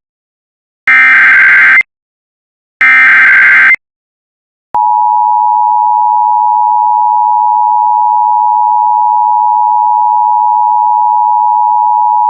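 Emergency Alert System SAME header: the end of one short burst of warbling digital data tones and two more about a second apart, the header sent three times. Then the EAS two-tone attention signal, a steady dual tone held for about eight seconds that cuts off sharply, marking the start of the alert message.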